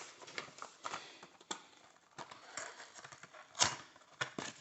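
Scattered clicks, taps and light rustling as ring-light accessories are handled and unpacked from their packaging, with one louder click about three and a half seconds in.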